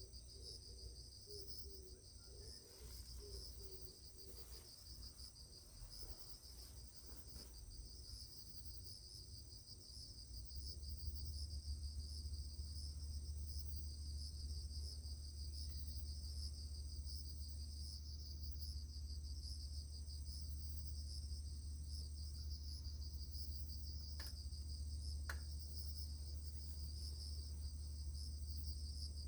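Insects chirring steadily in a fast pulsing trill, with a thin, steady high-pitched tone above it. About ten seconds in, a low steady rumble joins and becomes the loudest sound.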